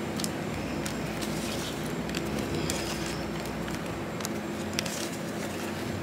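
Playing cards being dealt onto a wooden picnic table: scattered light card taps and flicks over a steady low mechanical hum.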